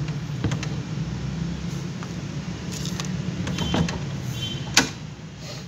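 Kittens pawing and scratching at a wooden door, making scattered light knocks and scrapes and one sharp knock near the end, over a steady low hum.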